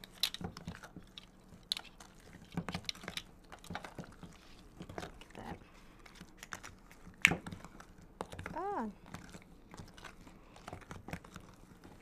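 Spatula stirring and scraping thick cookie dough in a plastic tub: irregular soft scrapes and sticky clicks, with one sharper click about seven seconds in. A short hummed vocal sound comes near nine seconds.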